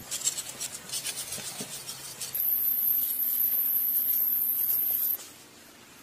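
Scratchy rubbing and scraping on a rough surface for about two seconds. Then a loud, steady, very high-pitched hiss runs for about three seconds and cuts off suddenly.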